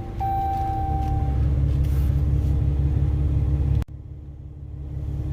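Steady low vehicle rumble heard from inside the cab, with a thin steady tone over it for the first second or so. Just before four seconds in the rumble cuts out abruptly, then builds back up toward the end.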